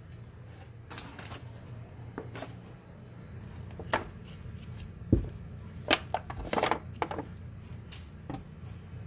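Plastic takeout cups and lidded containers being handled and set down in a cardboard box on a foil tray: scattered light clicks, knocks and crinkles, a little cluster of them near the end, over a steady low hum.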